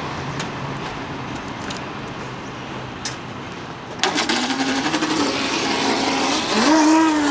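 A short click, then the brushless electric motor and propeller of a radio-controlled hydroplane start suddenly about four seconds in and run at speed as the boat races off across the water. The motor's whine rises in pitch, then climbs and falls again near the end.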